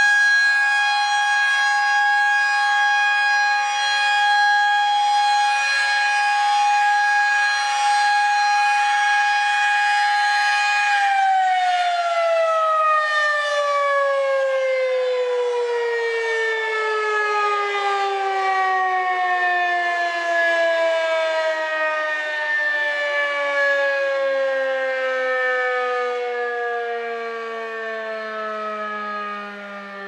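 Federal Signal 2001-SRN rotating electromechanical outdoor warning siren sounding a steady, high-pitched alert tone for its weekly test. About eleven seconds in it shuts off and winds down, its pitch falling steadily and the sound slowly fading.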